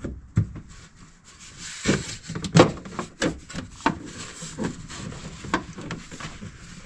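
Irregular knocks, taps and rubbing as a plastic firewall splash shield is handled and pushed into place on a UTV. The loudest knock comes about two and a half seconds in.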